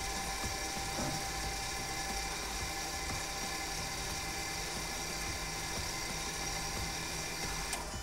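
Volkswagen Tiguan's electromechanical rear parking-brake caliper motors running, a steady geared whine as they wind the brake back open to the pad-change position. The whine cuts off with a click near the end.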